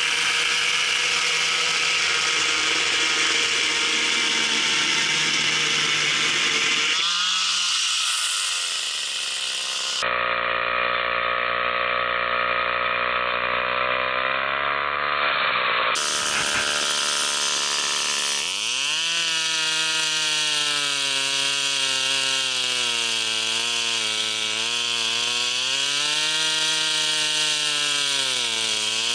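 Two-stroke gasoline chainsaw running under load as it cuts through a log. About seven seconds in, the engine speed falls away. From then on the engine runs with its pitch rising and falling as the revs change.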